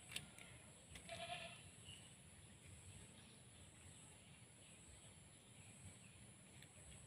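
Mostly quiet, with a sharp click just after the start and one short, pitched animal cry about a second in.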